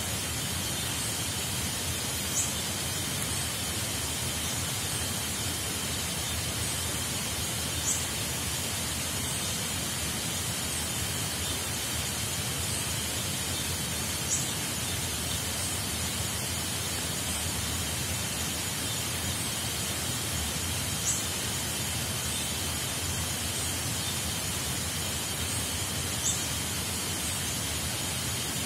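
Steady hiss of falling water in the forest, with a steady high-pitched drone over it and a short, high chirp about every five to six seconds.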